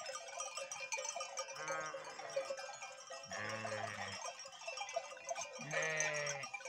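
Sheep in a grazing flock bleating three times, about two, three and a half and six seconds in, each call wavering, over background music.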